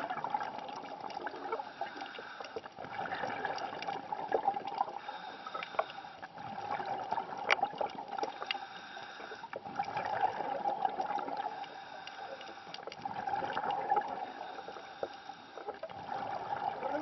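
Underwater bubbling and gurgling from a diver's breathing: the exhaled bubbles from the regulator swell and fade about every three seconds. Scattered faint clicks sound through it.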